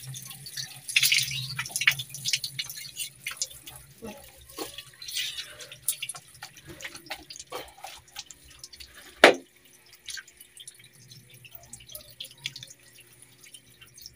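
Water from a hose splashing and dripping onto a wet dog and a tiled bathroom floor as hands rub its coat, in irregular splashes, with one sharp knock about nine seconds in.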